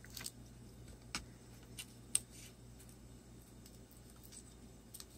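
Faint, scattered clicks and ticks of fingers picking at tape and a cable inside an opened laptop, a handful in the first two and a half seconds, then almost nothing until a couple more near the end.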